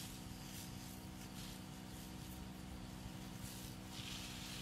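Faint hiss of water from a garden hose spraying onto a vegetable bed, coming and going and loudest near the end, over a steady low hum.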